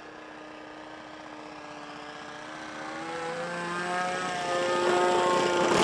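Radio-controlled model plane's propeller engine running, growing steadily louder as the plane comes in low over the field. From about halfway through, its pitch shifts up and down in steps.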